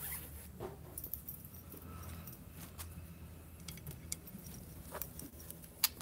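Light metallic clicks and rattles of a round wire birdcage being handled while its cloth cover is put on, with one sharper click near the end.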